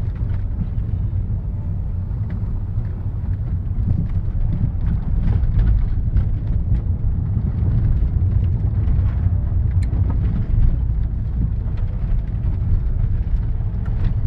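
Car engine and road noise heard from inside the cabin: a steady low rumble with scattered light knocks, getting a little louder about four seconds in.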